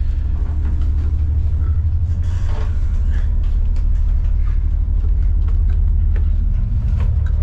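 Steady low drone of an ocean-going tugboat's diesel engines, heard from inside the vessel while it is underway, with a few faint knocks and bumps of movement on top.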